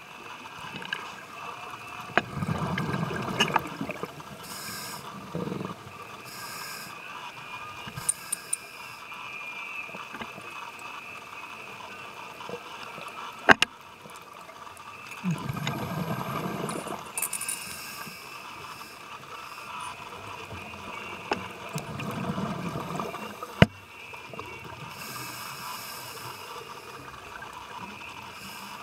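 Scuba diver's regulator breathing underwater: three gurgling bursts of exhaled bubbles several seconds apart over a steady low hiss, with two sharp clicks.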